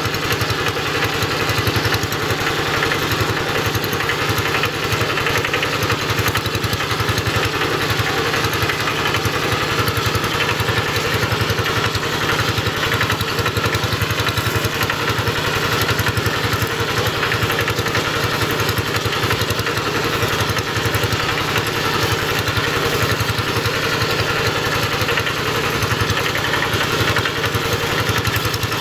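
Kubota RD110 single-cylinder diesel on a Quick two-wheel hand tractor running steadily, with fast, even chugging, as it pulls a plough through wet paddy soil.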